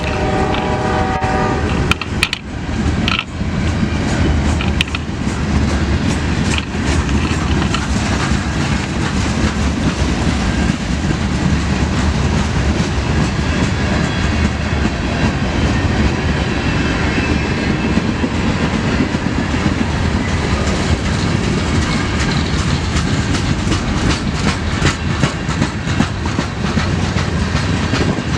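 CSX manifest freight train passing. The locomotive horn sounds a chord of several tones that stops about a second and a half in, then a steady loud rumble of rolling freight cars with wheels clicking over the rail joints.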